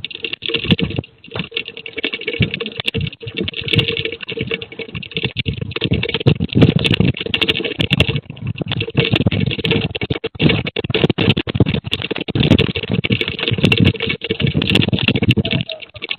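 Earthquake shaking heard through a CCTV camera's microphone: dense, irregular rattling and clattering over a low rumble that swells and eases, with a brief lull about a second in.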